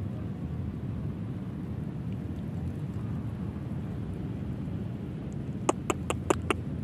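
Steady low rumble of wind buffeting the microphone outdoors. Near the end comes a quick run of about five sharp ticks.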